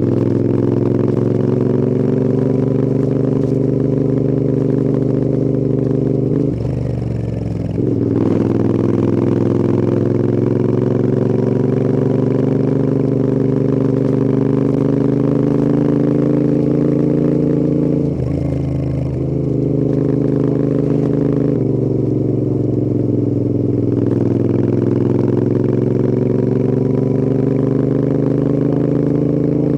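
Royal Enfield Interceptor 650's 648 cc parallel twin running under load on the road, the exhaust note climbing slowly with the revs. It shifts up twice, about seven and nineteen seconds in: each time the note dips briefly, then picks up again from lower revs.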